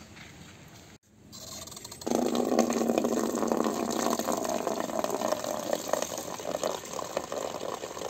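Water running from an outdoor wall tap into a plastic bucket, filling it, with the flow turning strong about two seconds in.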